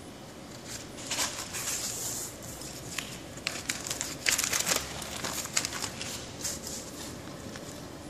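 Thin plastic film crinkling and crackling as it is handled, in irregular bursts with sharp clicks for several seconds, loudest about halfway through.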